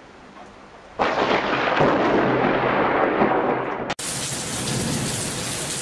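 A sudden loud thunderclap about a second in, rumbling and slowly fading over about three seconds. It then gives way abruptly to heavy rain pouring steadily.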